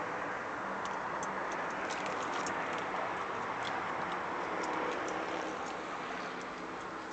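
Steady background hiss with many scattered light clicks and crackles at irregular intervals.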